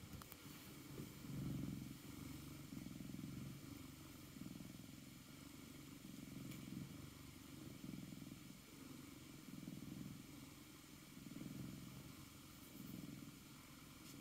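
Norwegian Forest Cat purring steadily, the low purr swelling and fading with each breath about every second and a half.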